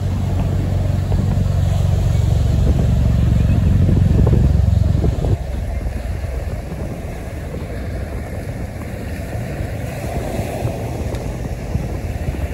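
V-22 Osprey tiltrotor flying past, its proprotors and engines making a loud, low drone that drops off fairly suddenly about five seconds in and carries on fainter. Surf and wind are heard underneath.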